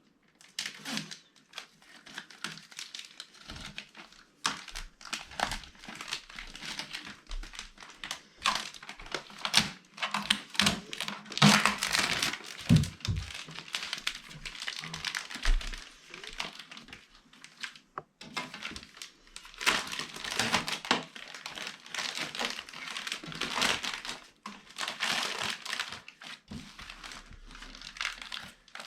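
Packaging being handled and pulled off a new 3D printer: irregular crinkling and rustling with scattered knocks, busiest around the middle.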